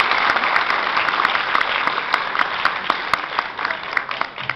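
Audience applauding: a dense patter of hand claps that slowly thins out, with single louder claps standing out near the end.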